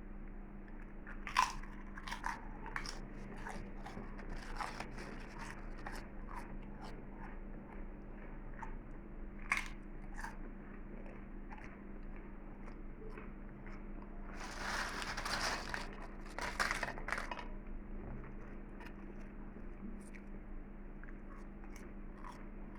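Potato chips being bitten and chewed: scattered sharp crunches, with a denser run of crunching about two-thirds of the way in.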